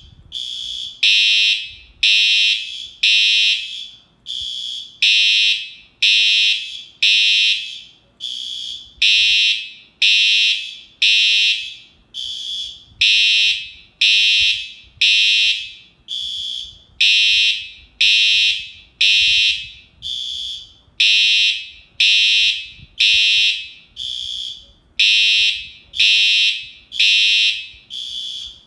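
Fire alarm sounding a repeating high-pitched pulsed tone, about one blast a second, each blast starting sharply and fading off, some louder than others.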